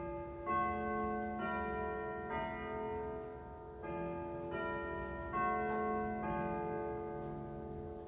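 Junghans grandfather clock chiming a melody: two phrases of four struck notes each, the second starting about four seconds in, every note ringing on under the next.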